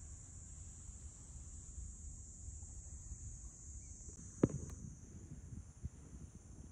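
Insects chirring in a steady, high, continuous buzz over a low outdoor rumble, with one sharp thump about four and a half seconds in.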